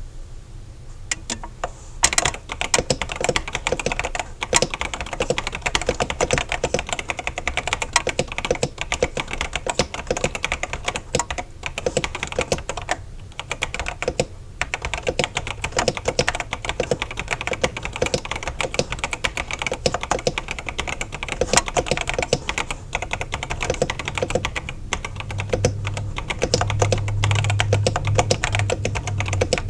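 Typing on an Epomaker DynaTab 75 mechanical keyboard fitted with Epomaker Flamingo linear switches and PBT keycaps: a fast, continuous run of keystrokes starting about two seconds in, with a few brief pauses.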